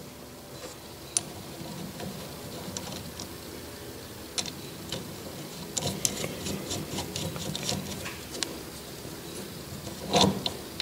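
Small metal clicks and clinks as Atlas lathe change gears and a bushing are handled and fitted onto a stud of the change-gear quadrant, with a quick run of small clicks partway through and one louder clunk near the end.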